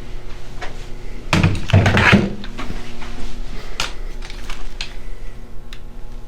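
Indoor movement and handling noise over a steady low electrical hum: a few light knocks, and one louder brief clatter about a second and a half in.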